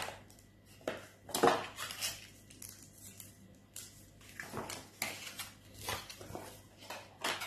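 Cardboard packaging and paper being handled: a string of short, irregular rustles, scrapes and light knocks as a white cardboard insert and papers are lifted out of a small box.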